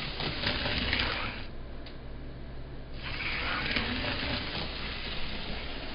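Model GG-1 locomotive running along the layout track, its motor and wheels making a steady whirring rumble, muffled for about a second and a half near two seconds in. This is a test run of the motor after new brush springs and a replacement armature.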